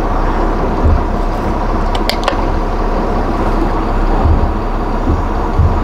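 Fishing boat's engine running steadily, heard inside the wheelhouse as a constant low drone. A few sharp clicks sound about two seconds in.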